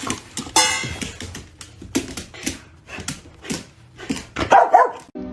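A dog barking twice, once under a second in and louder about four and a half seconds in, over many irregular sharp taps and clicks.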